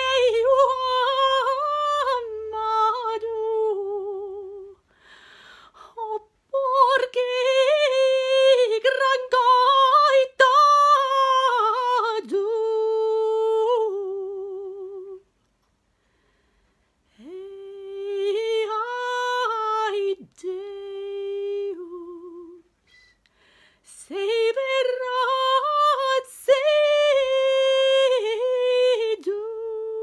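Solo soprano singing unaccompanied, a medieval Galician-Portuguese song, in long melismatic phrases with vibrato at their ends and short pauses between them. Near the end she holds one steady note.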